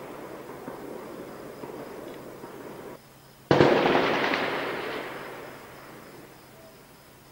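A steady low noise, then about three and a half seconds in a single loud explosion of an incoming artillery shell, which rolls away over about two seconds.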